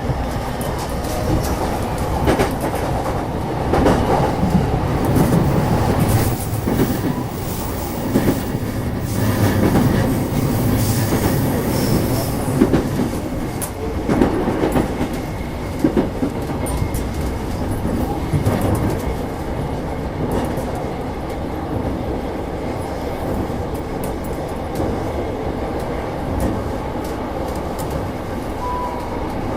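Running noise inside a JR East E233-1000 series electric train car: steady rumble with wheels clattering over rail joints, louder and busier in the first half and steadier later on.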